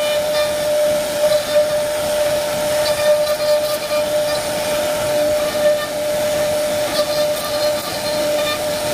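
CNC router spindle running with a steady high whine over a hiss of cutting, as the machine carves wood.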